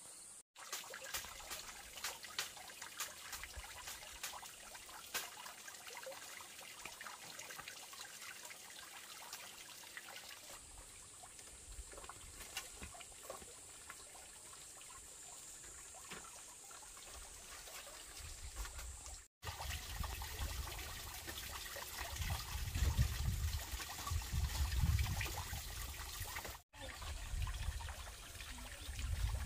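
Water trickling and splashing into a small pond, with scattered small clicks and knocks; the flow sounds louder and fuller in the last third.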